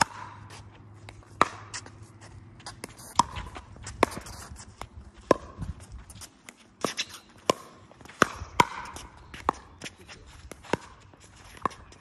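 Pickleball rally: paddles striking the plastic ball back and forth, with a sharp pop about every second, around a dozen in all. Footsteps can be heard on the hard court.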